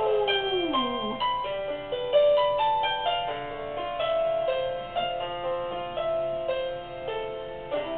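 A small dog's howl slides down in pitch and ends about a second in, followed by piano notes played one after another.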